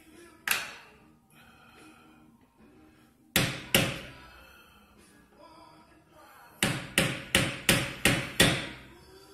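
Hammer striking a screwdriver held against a BMW E46's rear wheel hub, like a punch or drift: one blow, then two, then a run of six quick blows about three a second, each with a short metallic ring. Faint background music plays underneath.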